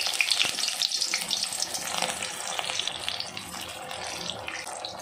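Potato-stuffed bread rolls deep-frying in hot oil, just lowered in: the oil bubbling with a steady sizzle full of small crackles.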